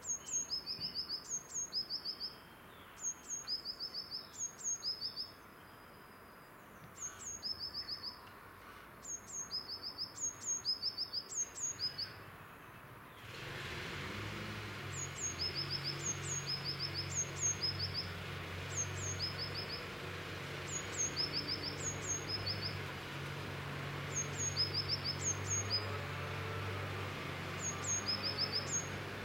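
A small songbird singing a short phrase over and over, roughly once a second in runs: one or two thin high notes followed by a quick rattle of about five slightly lower notes. From about halfway, a low steady hum comes up underneath.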